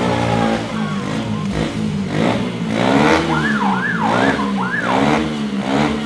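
Motorcycle engine revved up and down repeatedly, its pitch rising and falling about once a second. In the middle, a high wailing tone rises and falls four times, like a siren.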